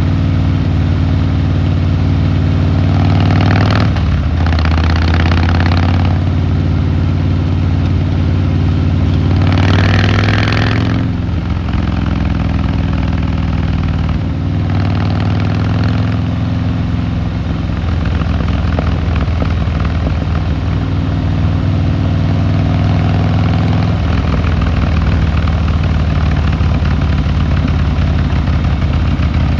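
Harley-Davidson Fat Boy Lo V-twin engine and exhaust running on the move, the note rising and falling with the throttle. There are two louder stretches with more hiss, about four and ten seconds in, and the pitch drops shortly after the second.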